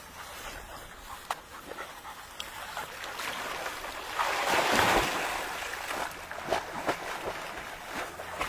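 Water splashing as Labrador puppies wade and paddle into a shallow pond, with a burst of heavier splashing about halfway through.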